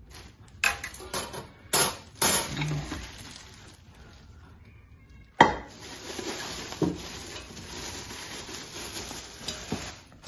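Stainless steel Instant Pot steamer rack and inner pot being unwrapped and handled: several metal clinks and knocks with plastic wrap crinkling, then a sharp knock about five seconds in followed by steady rustling of plastic wrap.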